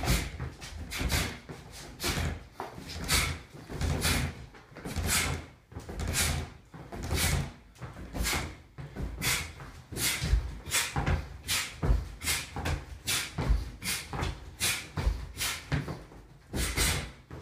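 A person shadowboxing up and down a line with knee strikes: feet stepping on the floor and quick swishes of movement, about two a second in an uneven rhythm.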